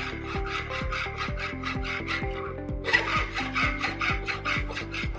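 Hand file rasping back and forth across the edges of a small metal plate clamped in a bench vice, flattening its corners; the filing gets louder about three seconds in.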